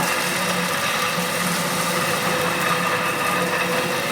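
Three-phase electric concrete grinder running steadily, a loud even hum over a broad whir.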